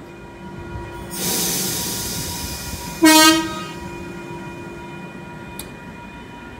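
NSW TrainLink New Intercity Fleet electric train departing with a steady electric hum. A sudden hiss of air starts about a second in and fades over two seconds, then the train sounds one short, loud horn blast about three seconds in.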